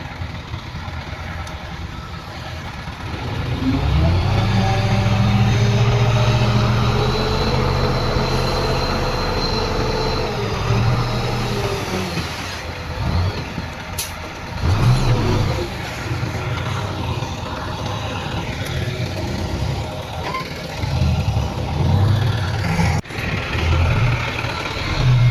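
Heavy diesel earthmoving machinery working, bulldozer and dump-truck engines. The engine note rises about three seconds in and holds strong, then surges up and down repeatedly, with a brief sharp hiss about halfway through.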